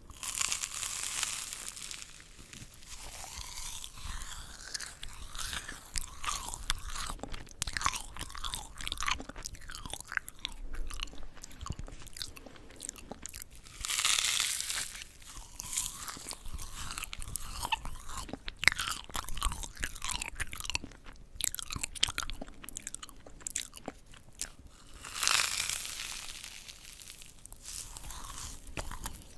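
Close-miked crunching and chewing of crispy yugwa, Korean fried glutinous-rice cookies coated in puffed rice. Louder crisp bites come near the start, about halfway through, and a few seconds before the end, with continuous crackly chewing in between.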